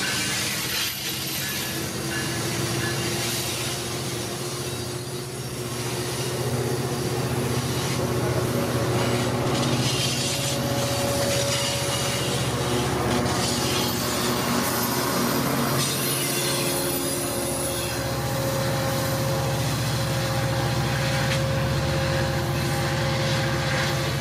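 Amtrak California bilevel passenger train rolling past, a steady rumble of steel wheels on rail with the steady drone of its diesel locomotive.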